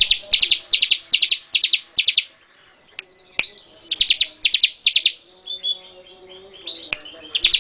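Ciblek (bar-winged prinia) singing: loud phrases of sharp, rapidly stuttered notes, about five or six to a phrase at two to three a second, with short pauses between phrases and a few sharp clicks.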